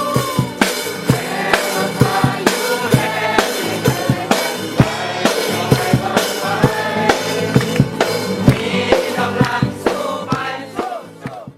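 Background song with singing voices over a drum-kit beat; it fades and cuts off at the very end.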